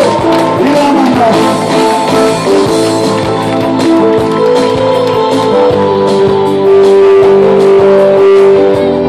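Live band music from acoustic guitar and electric keyboards, playing a passage of held chords and sustained notes. A sung line fades out about a second in, and the rest is instrumental.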